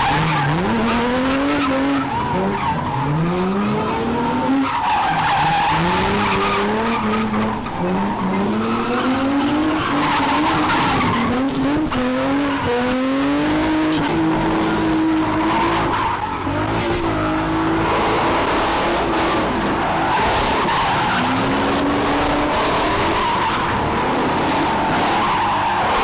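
Car drifting with its tyres skidding and squealing. The engine revs up over and over and holds high revs for a while around the middle.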